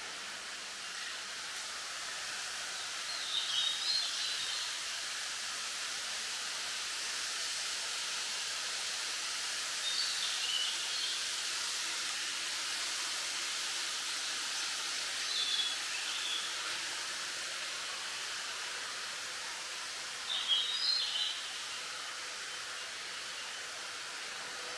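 Wind rustling through bamboo leaves as a steady hiss, while a bird gives short calls four times, about five seconds apart.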